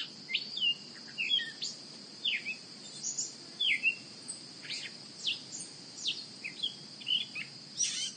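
Outdoor nature ambience: several small birds chirping in short quick sweeping calls, scattered through the whole stretch, over a continuous high-pitched insect drone and faint low background noise.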